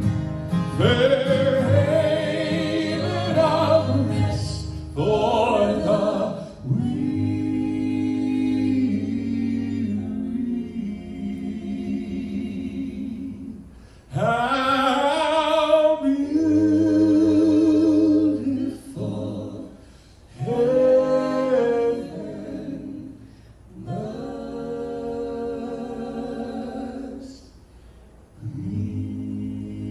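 Southern gospel vocal group singing in close harmony, men's and women's voices together. The phrases are long held chords with vibrato, breaking off briefly between phrases.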